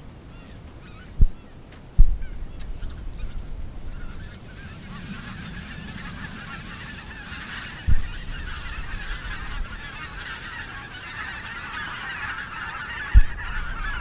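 A flock of wild geese calling: many overlapping honks that build up from about four seconds in and carry on steadily. Four short, loud low thumps break in, about a second in, at two seconds, near eight seconds and near the end.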